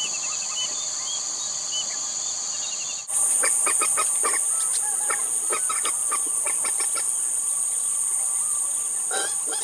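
Steady high-pitched insect chorus with many short bird calls over it. About three seconds in the drone switches to a louder, higher one, and the bird calls come thick and fast after that.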